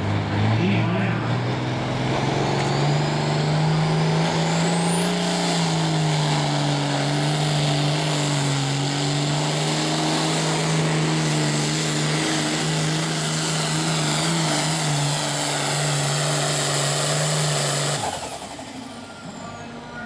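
Super farm class pulling tractor's turbocharged diesel engine at full power under load from the sled. A steady deep engine note runs under a turbo whistle that climbs to a very high pitch over the first few seconds. Near the end it cuts off suddenly, and a high whine falls away.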